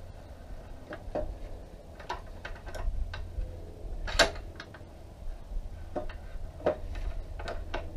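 Irregular metallic clicks and taps of a socket wrench being worked on a motorcycle exhaust mounting nut, one sharper click about four seconds in.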